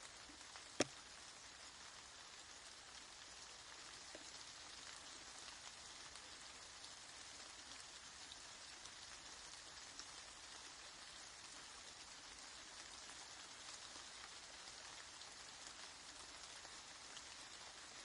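Steady, quiet rain pattering with fine, even hiss-like drop noise. One sharp tap about a second in stands out as the loudest sound.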